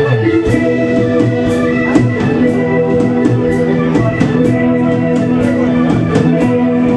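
Live rock band playing: an electric organ holds sustained chords over drums, with cymbal hits coming at a steady beat.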